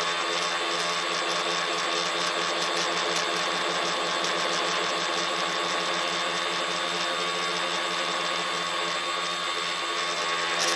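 Tricopter's electric motors and propellers running steadily in flight: a constant whine made of several steady tones over a rushing hiss, picked up by a phone carried on the craft.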